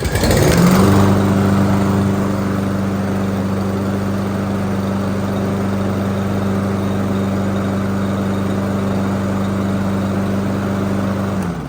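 Briggs & Stratton lawn mower engine pull-started, catching at once and rising to a steady governed run within the first second, then cutting off near the end. It starts easily because its stuck auto choke has been freed.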